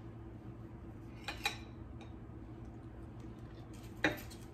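Chef's knife cutting a firm seitan sausage and clicking against the plate beneath: a quick cluster of clicks about a second and a half in and one sharper click near the end, over a steady low hum.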